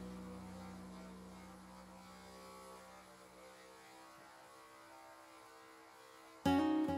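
Background music: a song's last held chord fades away to a very low level, and about six and a half seconds in a song starts again with strummed acoustic guitar.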